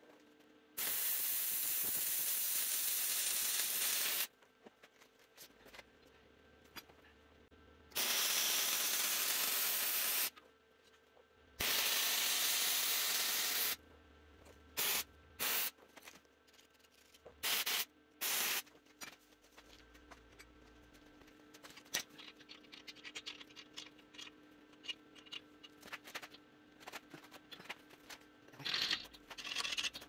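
MIG welder arc running in three welds of two to three seconds each, every one starting and stopping abruptly, then four short tacks, as steel is welded onto a pipe bender's frame. Faint clicks and metal handling follow in the second half.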